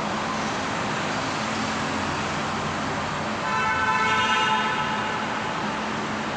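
Steady road and tyre noise of a vehicle driving through a road tunnel, heard from inside the cabin, with a vehicle horn sounding for about a second and a half in the middle.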